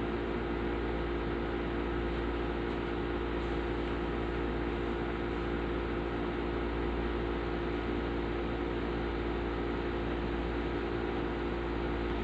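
Electric stand fan running steadily: an even whooshing noise with a constant motor hum.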